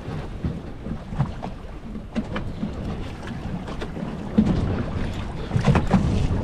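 Wind buffeting the microphone on an open boat at sea, with scattered knocks and clatters of handling that are louder in the last two seconds.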